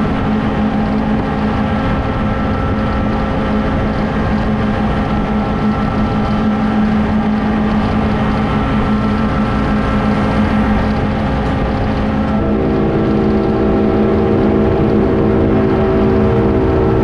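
Diesel-electric locomotive engine running steadily under load at speed, with rumble from the moving train. About twelve seconds in, a multi-note locomotive horn sounds a steady chord for about five seconds.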